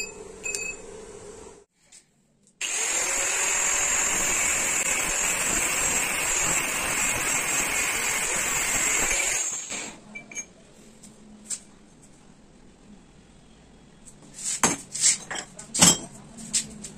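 Angle grinder with a cut-off disc cutting through a steel flat bar held in a bench vise: a steady high whine with grinding hiss, starting about two and a half seconds in and stopping some seven seconds later. Near the end come several sharp metallic knocks and clanks as the vise is worked.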